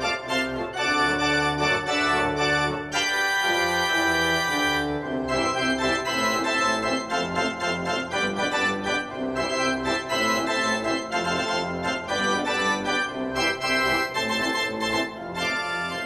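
Organ music from an ice-hockey arena goal celebration: a rhythmic run of short chords and notes, with one chord held for about two seconds about three seconds in.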